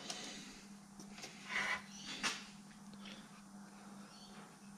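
Faint clicks and soft handling noises of a hand working the switch and knobs on a bench DC power supply, with a brief rustle about a second and a half in, over a faint steady low hum.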